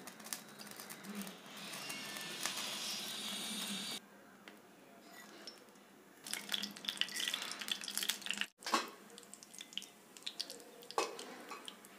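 Hot cooking oil sizzling in a pan. About six seconds in, spices tipped into the oil for tempering crackle and pop in a dense run, and scattered crackles go on to the end.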